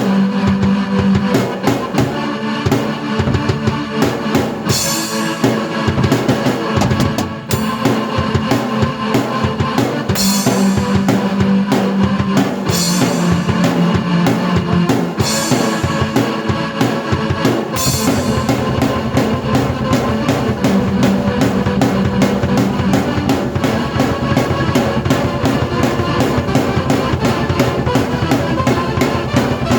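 Drum kit and keyboard played together by one player: a driving beat with bass drum and snare under sustained keyboard notes, with several cymbal crashes in the first half and a denser, more even beat from just past halfway.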